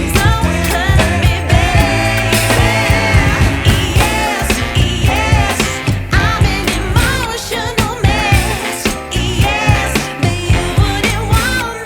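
Background pop song with a sung vocal, a steady beat and strong bass.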